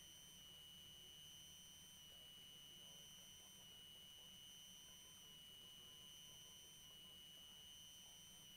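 Near silence on an air-band radio between transmissions, with only a faint steady high-pitched electronic tone.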